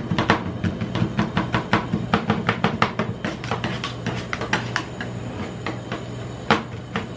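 Two metal spatulas chopping and scraping on a steel rolled-ice-cream cold plate, breaking KitKat pieces into the ice cream base: rapid, irregular sharp taps over a steady low hum. The taps thin out about two-thirds of the way in, then one loud tap near the end.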